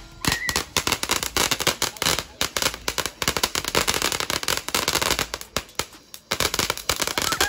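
Consumer fireworks crackling and popping in a dense, irregular rattle of sharp reports, thinning briefly about six seconds in.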